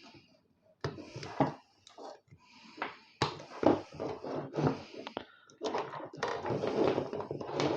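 Knocks and clatter of sheet-metal computer power supply units being picked up, turned over and set down, with a longer stretch of rattling near the end.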